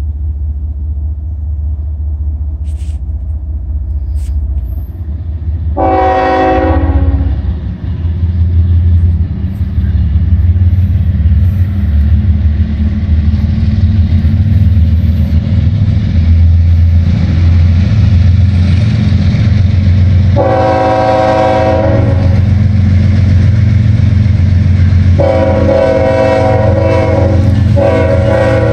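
Horn of the leading GE ES44AC diesel locomotive, NS 8025, sounding four blasts: a short one about six seconds in, a longer one around twenty seconds, and two long ones close together near the end. Underneath, the locomotive's steady diesel rumble grows louder as the slow freight train approaches.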